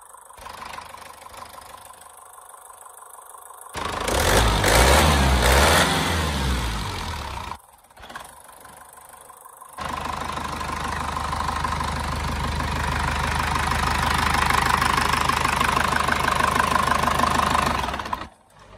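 Deutz F4L912 four-cylinder air-cooled diesel engine running. A loud stretch with a heavy low rumble cuts in about four seconds in and fades away by about seven and a half seconds. After a short quiet gap, steady running cuts in again near ten seconds, grows slowly louder and stops abruptly near the end.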